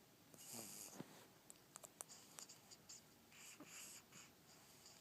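A sleeping baby snoring faintly: two rough, wheezy breaths about three seconds apart, with a few faint short clicks between them.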